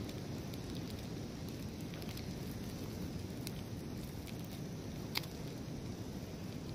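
Eggs sizzling and crackling in a frying pan on a canister camp stove, over a steady low rush of ocean surf. A single sharp click about five seconds in.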